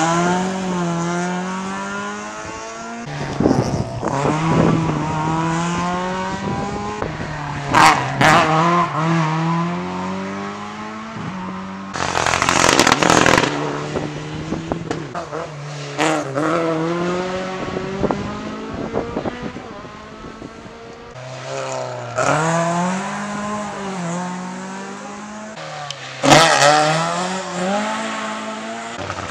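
Rally cars accelerating hard one after another, engines revving up and dropping back at each gear change as they come and go. A few loud, sharp cracks stand out among the engine notes.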